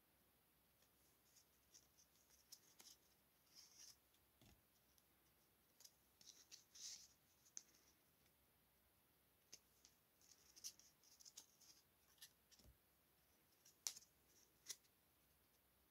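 Faint rustling and light clicks of stiff paper cards being handled and swapped between fingers, coming in scattered short bursts.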